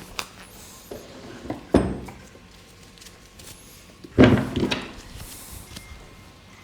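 Bodywork on a treatment table: a light click, then two heavy thumps with a short rustle after each, about two and a half seconds apart, the second the loudest.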